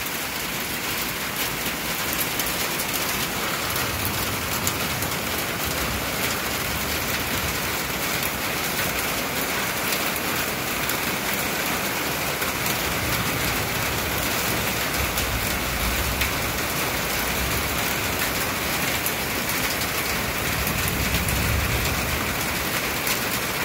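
Heavy thunderstorm rain pouring steadily, a dense even hiss of drops hitting the ground and surfaces. A low rumble swells up and fades a few times underneath it.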